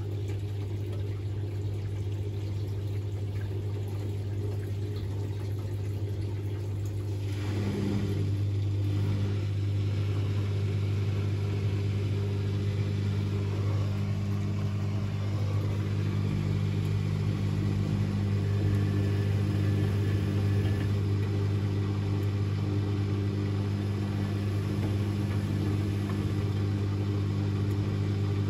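Electrolux EWC1050 washing machine draining after the first rinse, its drain pump humming steadily. About eight seconds in the sound fills out with more noise and grows a little louder, then runs on steadily.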